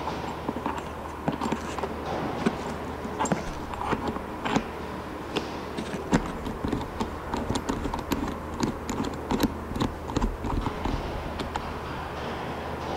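Small, irregular metallic clicks and taps as a hose fitting is worked onto an aircraft's oxygen fill port with a small hand tool, over a steady low hum.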